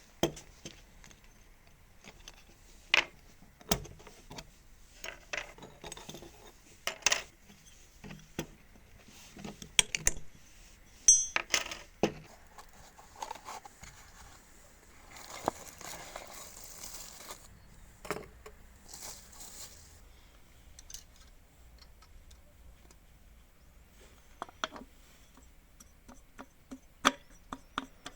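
Small metal parts clinking and knocking as they are handled on a workbench, in scattered single taps, with one piece ringing briefly about eleven seconds in. A soft rushing noise runs for a few seconds in the middle.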